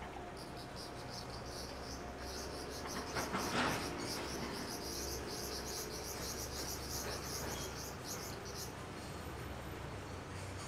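Rapid high-pitched chirping: a steady run of short, evenly spaced pulses that stops about nine seconds in, over a low steady hum. A brief rushing noise about three seconds in is the loudest moment.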